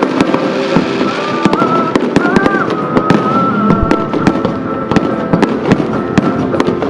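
Fireworks crackling and popping, many sharp cracks a second, with music playing underneath.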